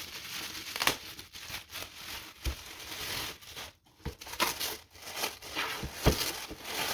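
Packaging being handled during an unboxing: irregular crinkling and rustling of wrapping, with a few sharp clicks and light knocks.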